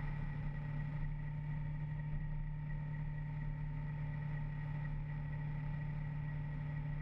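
Motorcycle engine running at a steady cruising speed, a constant low hum with a faint higher whine, over wind and road noise.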